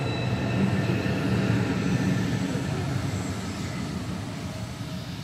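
Low steady rumble of a passing vehicle, with faint high whining tones above it, slowly fading toward the end.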